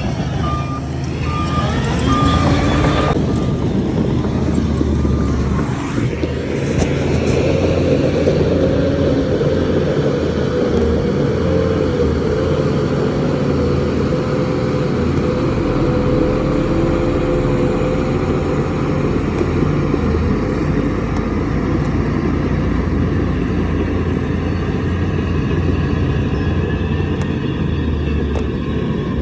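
Heavy diesel machinery engine running steadily under load, with a few short back-up alarm beeps in the first few seconds.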